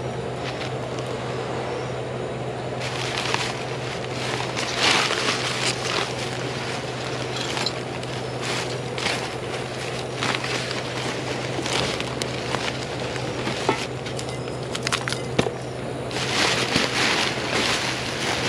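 Plastic trash bags, plastic wrap and cardboard rustling and crinkling as gloved hands rummage through a dumpster, in irregular bursts, over a steady low hum.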